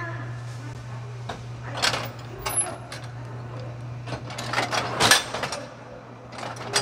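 Automatic walnut-manju baking machine at work: a series of metallic clanks and clicks from its moving batter-dispensing heads and cast-iron mould plates, loudest about five seconds in, over a steady low machine hum.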